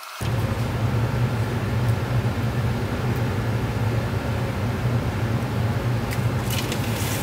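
A steady mechanical drone with a low hum underneath, starting abruptly just after the beginning and holding an even level. A few light clicks and clatters near the end.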